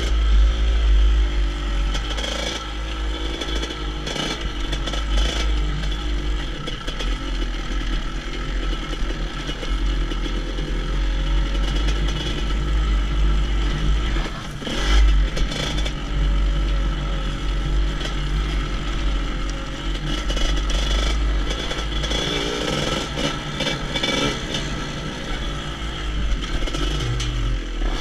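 GasGas EC 250 two-stroke enduro bike's engine running on the move, its pitch rising and falling as the throttle is worked, with wind rumbling on the helmet microphone and stones clattering under the tyres.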